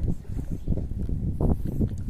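Wind buffeting the microphone: an uneven low rumble with gusty surges.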